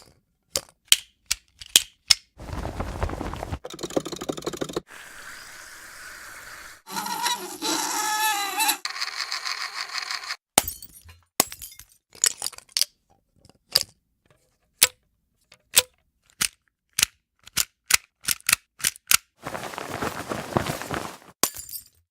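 Studio foley sound effects in quick succession: many short, sharp clicks and knocks, several stretches of rustling or scraping noise, and about two seconds of a wavering pitched sound about a third of the way through.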